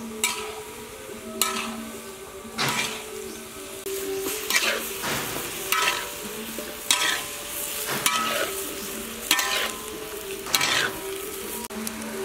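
Metal spatula scraping and clanking against a steel wok about once a second as water lily stems and ground pork are stir-fried, some strokes ringing briefly, over a steady sizzle.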